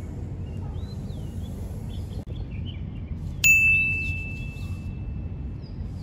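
A single bright ding a little past halfway, a struck bell-like tone that rings out and fades over about two seconds. Under it runs a steady low rumble of background noise, with a few faint high chirps early on.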